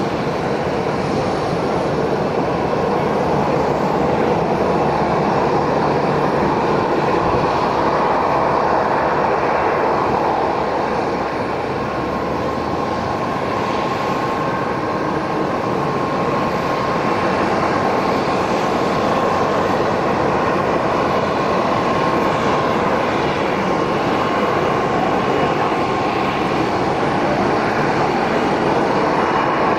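Steady engine noise of an Airbus A330-223 airliner on final approach with its gear down, from its twin Pratt & Whitney PW4000-series turbofans, with a faint steady whine through the middle.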